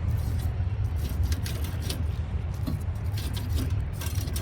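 Irregular scraping strokes on a deep fryer's electric heating elements as loosened carbon buildup is worked off after a boil-out, over a steady low hum.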